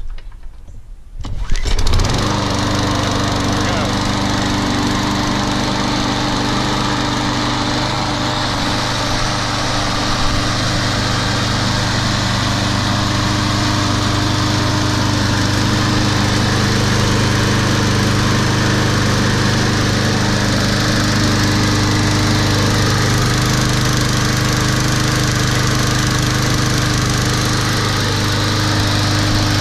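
Troy-Bilt TB230 walk-behind lawn mower's Briggs & Stratton engine cold-starting on a pull of the recoil starter after a few weeks unused. It catches about two seconds in, then runs steadily with no cutting load.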